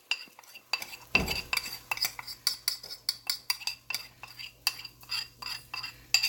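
Metal spoon scraping and clinking rapidly against a metal bowl and pot as curry paste is worked out into hot oil; each knock rings briefly. A low steady hum comes in about a second in.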